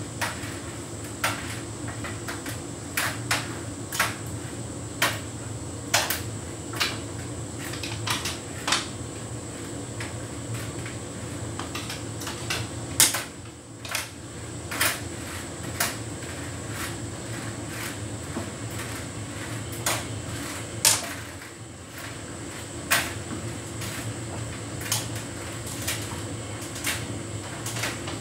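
Hotpoint heat pump tumble dryer running a synthetics cycle: a steady hum with irregular sharp clicks and knocks, roughly one a second, from the load tumbling in the drum.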